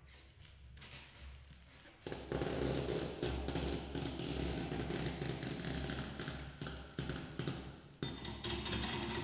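Prepared double bass rubbed by a white strap drawn along its strings past a tied-on balloon, giving a rasping friction noise full of crackling clicks. It starts suddenly about two seconds in, eases off, then surges again about a second before the end.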